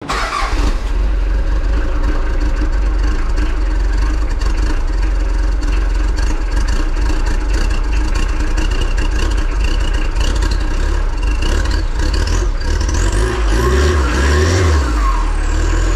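Mitsubishi Delica L400's 4M40 diesel engine starting and running rough, with the pitch rising and falling a couple of times near the end. A smoky, rough start and idle like this is the common sign of glow plugs not preheating the cylinders, which is what the owner suspects.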